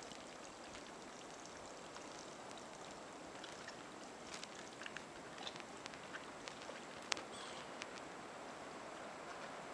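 Black bear climbing and clawing at a tree as it tugs at a hanging beaver carcass, then dropping down into shallow water. Scattered small scratches and snaps sound over a steady outdoor hiss, with one sharper crack about seven seconds in.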